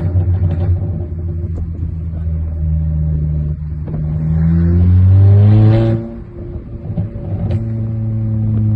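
A Seat Leon FR's 2.0 TFSI four-cylinder engine idles, then revs up steadily for a few seconds. About six seconds in the rev is cut off sharply and the engine falls back on the overrun, with a sharp exhaust crack about a second later, before it settles back to idle. These overrun pops come from its remapped Bosch MED9.1 engine software.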